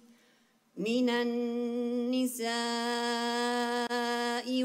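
A male voice reciting the Quran in melodic, drawn-out tajweed style. After a pause of under a second for breath, it holds two long, steady notes, with a short break between them a little past halfway.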